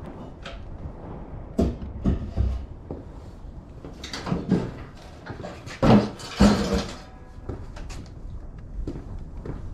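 Clunks, knocks and scraping of a Cub Cadet three-stage snowblower being pulled and turned by hand across a barn floor, engine off. The loudest knocks come about six seconds in, among two longer scrapes.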